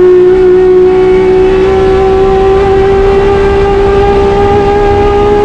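A de-stroked 3.3-litre BMW S38 straight-six in a Ford Escort Mk2 race car, heard from inside the cabin, pulling hard at high revs in one gear, its pitch climbing slowly and steadily.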